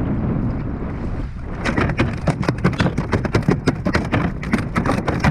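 Wind rushing on the microphone, then from about a second and a half in, quick irregular slaps and knocks: a freshly landed lingcod thrashing against the plastic kayak.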